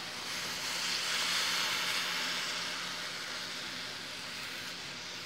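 Water poured into a hot frying pan of browned chicken fillets, hissing and sizzling as it hits the pan and boils off. The hiss swells about a second in and then slowly dies down as the pan cools under the water.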